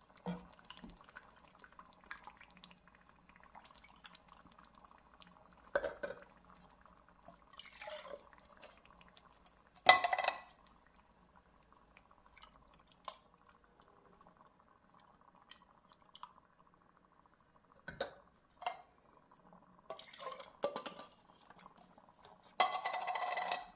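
Empty soup cans being handled and scraped with a spatula, with sporadic clinks and clanks of metal, the loudest about ten seconds in, and the slosh and trickle of half and half being swished around and poured out of the cans, with a longer stretch of pouring and scraping near the end.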